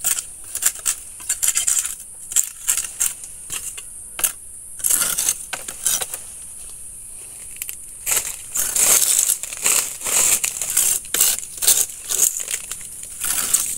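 Machete chopping at the frond stalks of a salak palm clump, pruning off old fronds: a run of sharp, irregular cuts and cracks with dry leaves rustling, pausing for a couple of seconds around the middle.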